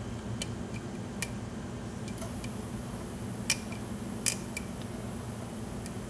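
Light metallic clicks from a lock pick working the pins of a Schlage 6-pin large-format interchangeable core held under tension, a few scattered ticks with two sharper clicks about halfway through, over a steady low hum.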